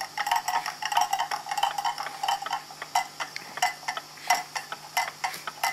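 Mechanical pendulum clock movement ticking on a test stand, its escapement giving a quick run of sharp metallic ticks as the pendulum swings. The movement is being set in beat.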